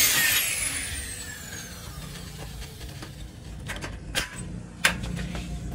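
A power tool's high whine falling steadily in pitch as it winds down, followed by a few sharp knocks.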